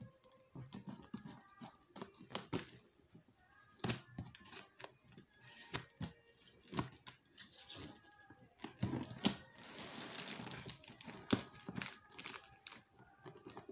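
Scissors snipping and cutting through packing tape on a cardboard box, with irregular sharp clicks and several longer tearing rips as tape is pulled away, and the box's plastic wrap crinkling.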